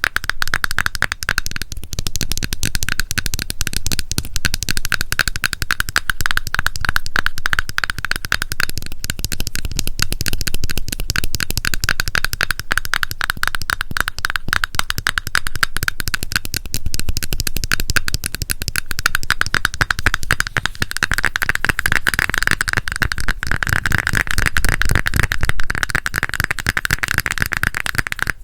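Fast ASMR tapping on a cosmetic cream container close to the microphone: a dense, unbroken run of crisp clicks, many a second.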